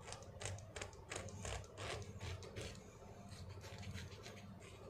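Cutter blade scraping thick, hardened dead skin off a heel in short, quick strokes, about four a second, thinning out to a few scattered strokes after about three seconds.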